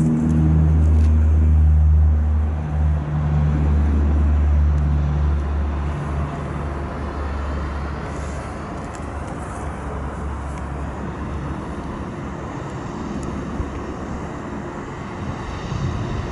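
Twin turboprop engines and propellers of a De Havilland Canada Dash 8-200 at takeoff power. A loud, low, steady propeller drone is strongest over the first few seconds, then fades into a broader, duller engine noise as the aircraft moves away and climbs out.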